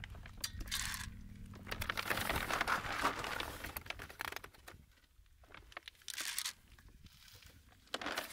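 Dry dog kibble poured from a bag into a stainless steel bowl: a dense rattling patter of pellets for about four seconds, followed by a couple of short rustles near the end.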